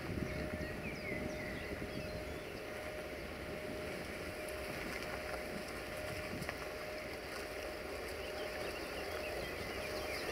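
Distant diesel locomotive hauling a passenger train, a low steady engine drone with a thin steady whine, growing slightly louder near the end as the train approaches. Birds chirp faintly over it.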